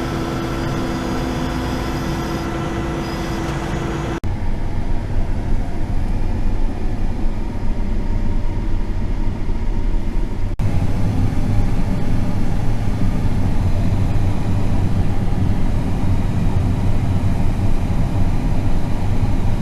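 John Deere S780 combine running: a steady machine hum with several held tones, then, after abrupt cuts about four seconds in and again about ten seconds in, a louder, denser rumble.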